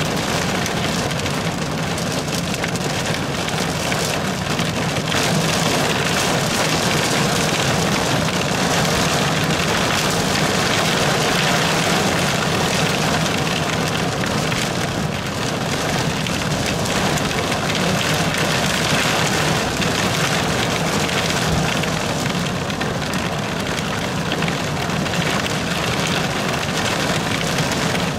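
Heavy rain falling steadily on a car's roof and windshield during a thunderstorm, heard from inside the car as a dense, even hiss.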